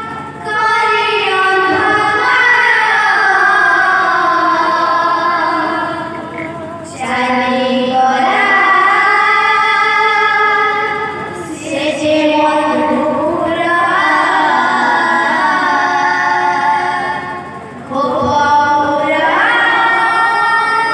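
A woman singing an Odia devotional kirtan song in four long, ornamented phrases, the pitch wavering and gliding, each phrase a few seconds long with a short breath between.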